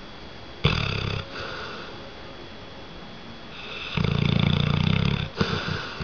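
A sleeping red-nose pit bull / American bulldog mix snoring loudly: a short, abrupt snore just under a second in, then a longer rattling snore from about four seconds in, breaking into a few quick stuttering breaths near the end.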